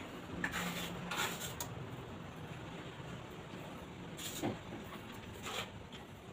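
Steel trowel scraping and spreading cement mortar on a masonry window edge: a few short scrapes about a second in, then single scrapes near the middle and later on, over a faint steady hum.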